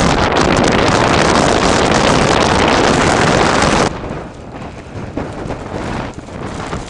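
Blizzard wind buffeting the microphone: a loud, steady rush that drops off abruptly about four seconds in, then goes on in weaker, uneven gusts.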